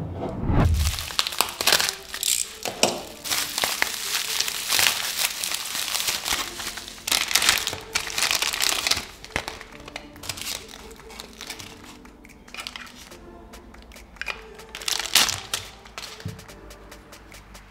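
Clear plastic parts bag crinkling and rustling in the hands as it is handled and opened, in irregular bursts, after a dull thud at the start. Quiet background music runs beneath.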